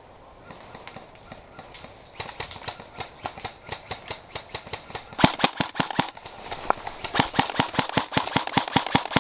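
Airsoft guns firing a rapid string of shots, several a second, in an exchange of fire. The shots start faint, grow louder about two seconds in, and are loudest from about five seconds on.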